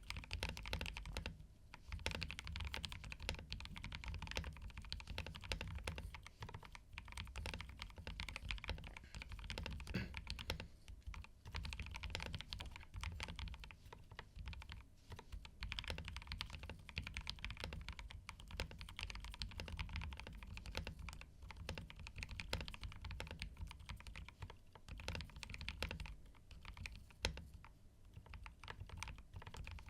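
Continuous typing on an Akko 5075S mechanical keyboard in its final modded state: switch stems lubed with Krytox 205 Grade 0, stabilizers lubed and balanced, and a band-aid mod. It is a steady stream of keystroke clacks with a few short pauses.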